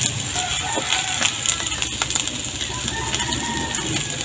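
Chopped onions, garlic and beef fat sizzling in a nonstick pan in their own rendered fat, with a wooden spatula stirring and scraping against the pan in small clicks.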